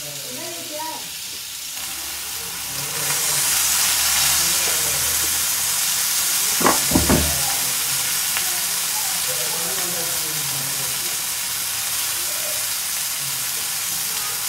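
Marinated chicken steaks sizzling in oil on a hot cast iron grill pan, a steady hiss that grows louder about three seconds in. Two brief knocks come about halfway through.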